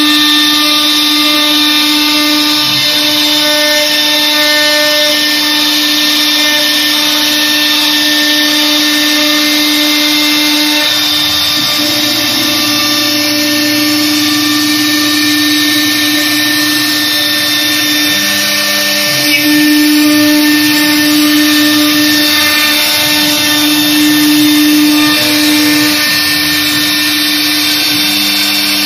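CNC router spindle cutting grooves into an MDF door panel: a loud, steady whine from the spindle with the hiss of the bit cutting through the board.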